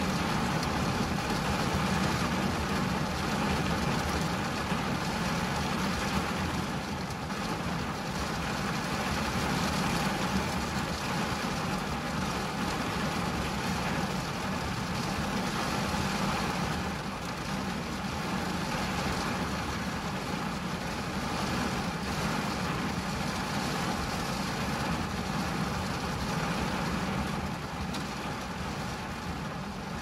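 Steady rain falling on a car's windshield and body, heard from inside the car: an even hiss with a low, dull drumming underneath.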